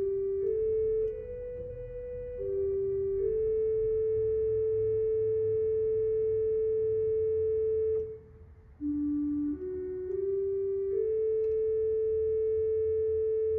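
Electronic church organ played softly: a slow single-line melody in a pure, flute-like tone climbs note by note to a long held note, breaks off briefly a little past halfway, then climbs again to another held note, over faint sustained chords.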